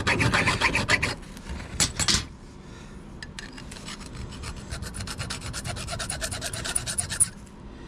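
Hand file scraping back and forth over a small metal part of an OTF automatic knife held in a vise, rounding off rough edges. The rapid strokes are louder for about the first two seconds, then lighter and steady until they stop shortly before the end.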